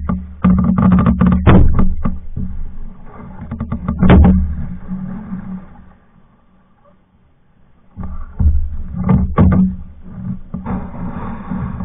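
Knocks and bumps on a Hornbeck pack canoe's hull from paddling, in clusters with a pause of about two seconds in the middle, over a steady low hum.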